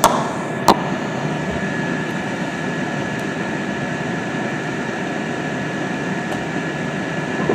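Steady machine whir with a faint, thin high whine held throughout; a single sharp knock just under a second in.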